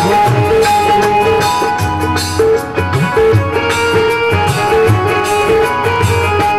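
Live band music for a Bhojpuri song: a keyboard-led instrumental melody over a steady drum beat and bass line.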